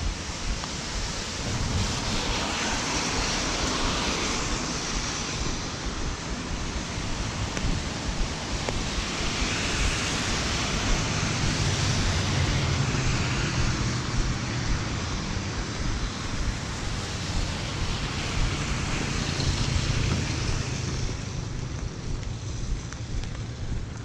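Steady rain and wind noise on the camera microphone, with the hiss of traffic on the wet road swelling twice and a low rumble in the middle.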